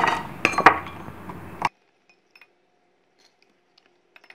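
Dishes clinking: three sharp clinks in the first second or so. Then the sound cuts off abruptly, leaving only a few faint ticks.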